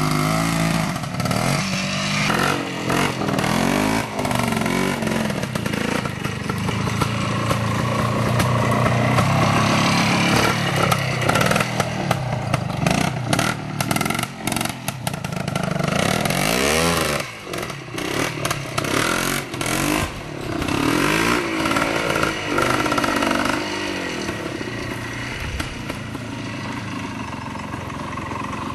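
Vintage trial motorcycle engines being ridden slowly over a steep section, the revs repeatedly rising and falling with throttle blips. A run of sharp clicks and knocks comes through in the middle.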